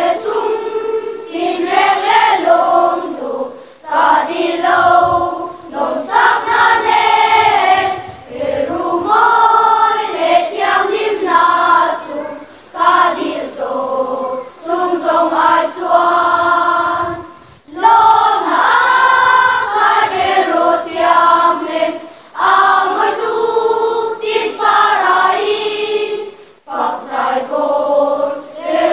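A children's choir singing together in phrases of a few seconds, with short breaks between phrases.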